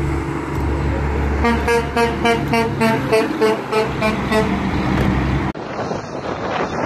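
Heavy truck passing with its engine running low, while a horn plays a quick tune of short notes at changing pitches for about three seconds. About five seconds in, the sound cuts to wind on the microphone.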